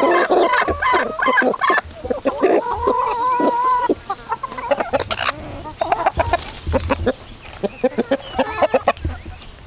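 A flock of chickens clucking and calling as they feed, with a longer drawn-out call about three seconds in and sparser clucks after that.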